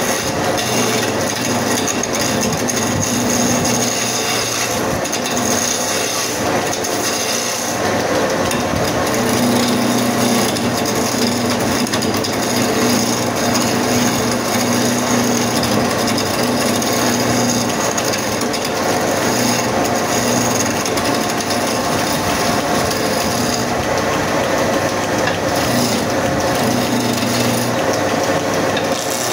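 A wood lathe spinning a long wooden log while a hand-held chisel cuts into it, giving a steady scraping hiss over the machine's hum.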